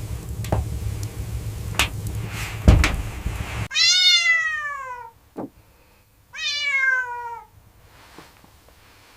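A low rushing wind noise with a few knocks cuts off abruptly, and a cat then meows twice, each a long meow falling in pitch.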